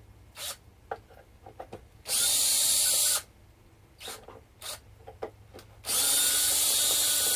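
Power drill-driver running in two bursts of about a second each, taking out the screws that hold the treadle's spring hinge. Light clicks and handling knocks come between the bursts.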